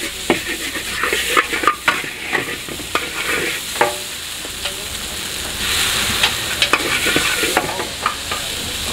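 Metal spatula scraping and clacking against a wok as fried rice vermicelli (bihun goreng) is stir-fried over high heat, with steady sizzling beneath. The sizzle grows louder for about two seconds past the middle.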